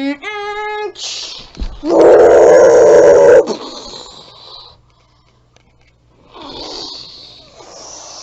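A loud bear roar of about a second and a half that cuts off abruptly, the giant polar bear announcing itself.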